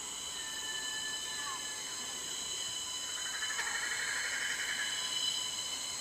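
Tropical rainforest ambience: a steady chorus of insects holding several high-pitched tones, with a short whistle about a second in and a rapid trilling call from about three to five seconds in.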